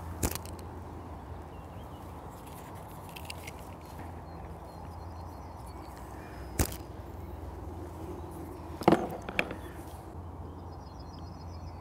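Bait catapult fired twice, each release a sharp snap, about a quarter second in and again about six and a half seconds in, then two knocks close together about nine seconds in. Faint bird chirps over a steady low hum.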